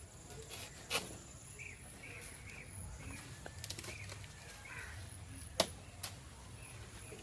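Quiet outdoor ambience with faint bird chirps and two sharp knocks, one about a second in and a louder one some four seconds later.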